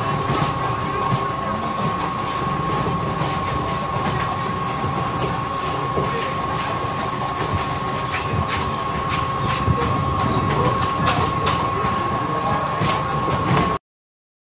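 Trains running on the rails, heard from aboard a moving EMU local train: a steady rumble with irregular clicks of wheels over rail joints and a steady high whine throughout. The sound cuts off suddenly near the end.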